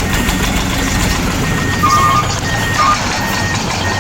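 Reversing alarm on an RC construction vehicle beeping steadily, about three beeps every two seconds, over continuous vehicle noise.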